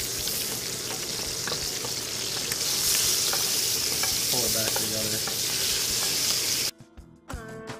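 Pancetta-wrapped scallops sizzling in hot oil in a frying pan, with small ticks of metal tongs against the pan as they are turned. The sizzle cuts off suddenly near the end.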